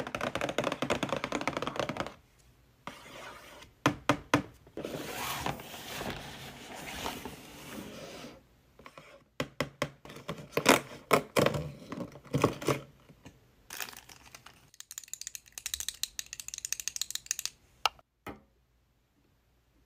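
Hands handling a cardboard advent calendar: many sharp fingernail taps and clicks on the cardboard, with stretches of scraping and rustling as its little doors are pushed open. The sounds stop about 18 seconds in.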